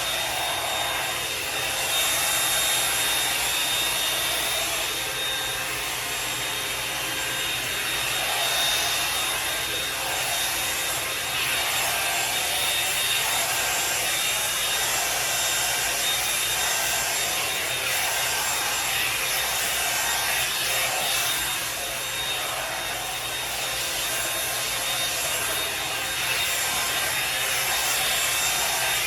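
Revlon One-Step hot-air brush dryer running steadily, its air blowing and its bristles rubbing through hair as it is drawn through in strokes.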